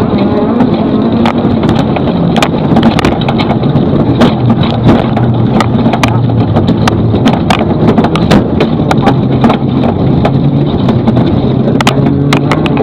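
Rally car engine running hard, its pitch rising and falling, with many sharp clicks and knocks over it.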